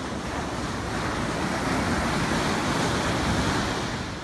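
Ocean surf breaking and washing up the beach, growing louder about halfway through and easing off near the end.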